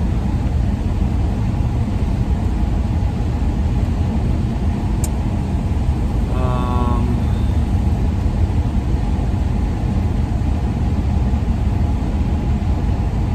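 Steady low rumble of a van's road and engine noise heard from inside the cab while driving. A brief pitched sound cuts in about halfway through.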